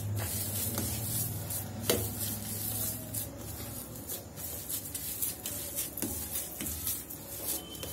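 Hand kneading and rubbing khoya against a stainless-steel plate, working it smooth like dough: a continuous soft rubbing and scraping with scattered light taps, the clearest about two seconds in.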